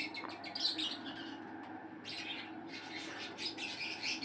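Many caged pet birds chirping and twittering together in a steady, busy chorus.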